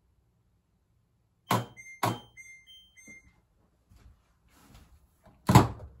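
Kenmore front-load washer at the end of its cycle, the drum stopped: two sharp clicks about a second and a half in, followed by a few faint short high tones, then a loud door-like thunk near the end.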